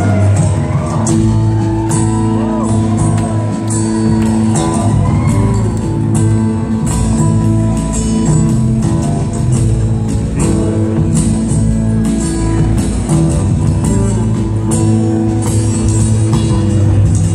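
A live rock band plays: electric guitar, upright bass and a drum kit keep a steady beat. It is heard from the audience in a large hall.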